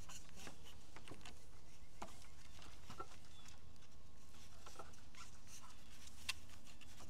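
Scattered light clicks and taps as a door pin is worked into the bottom of a wooden yurt door frame, over a steady low rumble.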